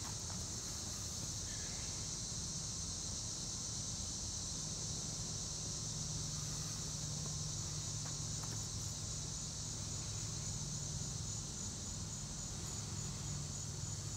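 Steady outdoor insect chorus, an even high-pitched drone that does not change, over a low steady hum.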